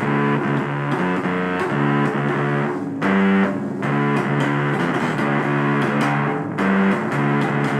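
Music led by electric guitar with distortion and effects over a bass line, with notes changing in a steady rhythm.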